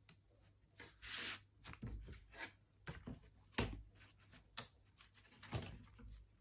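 Laser-cut plywood model-kit parts being pressed out of their sheet with a pointed tool and the sheet handled on a cutting mat: a string of small wooden clicks and knocks, the loudest about three and a half seconds in. There is a brief scraping rub about a second in.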